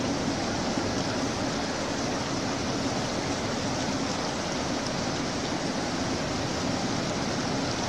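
Fast mountain river rushing over boulders: a steady hiss of white water, with a faint steady low hum underneath.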